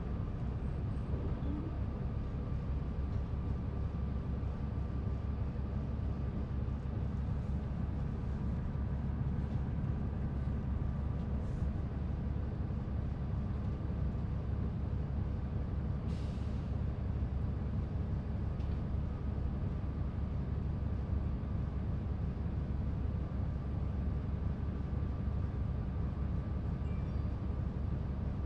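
The Cummins ISL diesel engine of a 2005 New Flyer D40LF transit bus running steadily at an unchanging pitch, with a faint steady whine above the low drone. A short hiss cuts in about sixteen seconds in.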